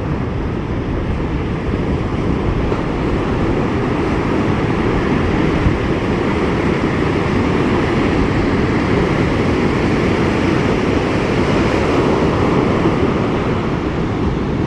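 Ocean surf breaking and washing over the shallows in a steady rush, with wind noise on the microphone.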